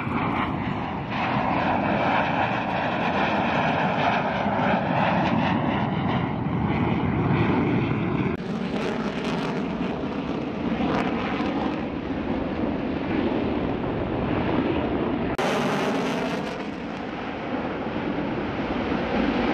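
F-35 Lightning II's single F135 jet engine running at high power, a dense roar with a shifting, whooshing tone as the jet passes. The sound changes abruptly about a second, eight seconds and fifteen seconds in.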